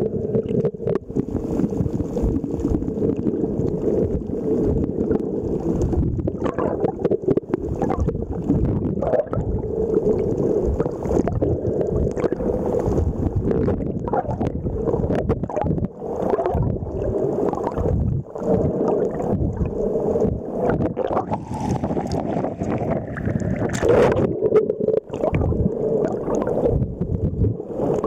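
Muffled underwater noise picked up by a camera below the surface: a steady low rumble and gurgling of moving water, with scattered clicks and knocks.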